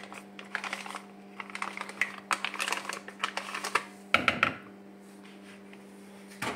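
Plastic marinade sachet crinkling and crackling as it is squeezed out into a bowl: a quick, uneven run of small clicks that stops after about four and a half seconds.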